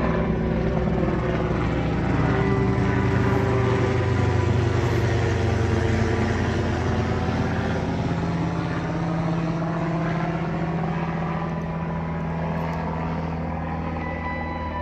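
A low-flying aircraft passing overhead: an engine drone that swells to its loudest about four seconds in, then slowly fades.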